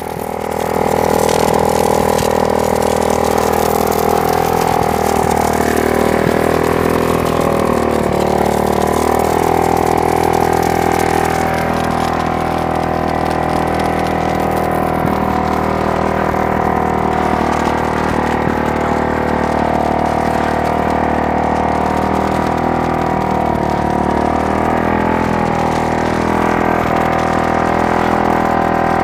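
Homemade belt-driven water pressure pump running steadily with its engine, delivering a good pressure to the hose; the pitch wavers slightly twice.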